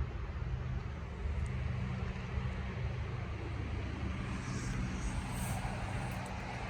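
Steady low rumble of motor traffic, with an engine hum underneath.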